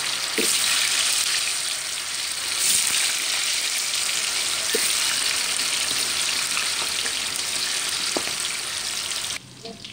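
Triangle-cut tofu deep-frying in hot oil in a wok: a steady sizzle as more pieces are dropped in. The sizzle cuts off suddenly near the end.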